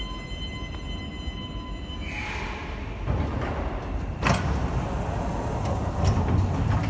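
Platform screen doors and the doors of a CAF AS-2014 metro train sliding open about two seconds in, just as a steady high tone stops. A sharp clunk follows about two seconds later, then a few lighter clicks and a low hum from inside the car.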